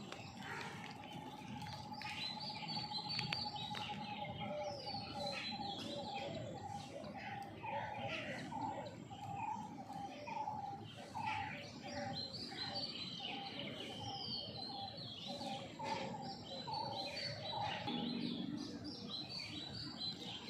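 Several wild birds singing and chirping: high, quick chirps over a long run of lower whistled notes that warble up and down, which stop about eighteen seconds in.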